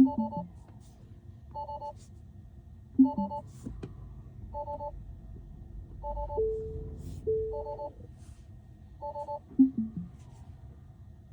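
Tesla Model 3's electronic warning chime beeping over and over, a two-note beep about every one and a half seconds. A few louder, lower notes step down in pitch at the start, about three seconds in and near the end.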